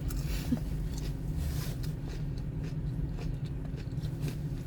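Steady low hum of a car cabin with the engine running, with scattered faint clicks and rustles from eating.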